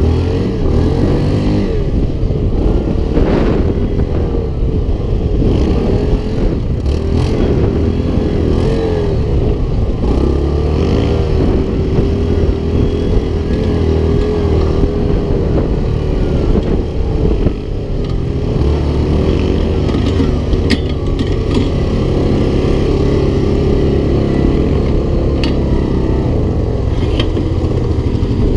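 Yamaha Grizzly 700 ATV's single-cylinder four-stroke engine running as it is ridden over rough ground, revs rising and falling continuously. A few sharp knocks and rattles come from the machine over bumps.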